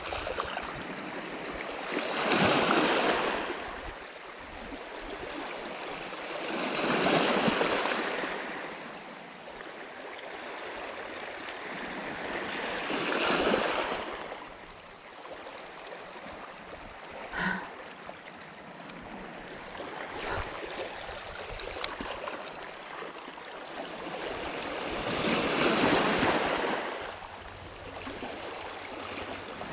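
Small sea waves washing in over a rocky, pebbly shoreline. They rise and fall in four long surges several seconds apart, with a steady wash of water between them.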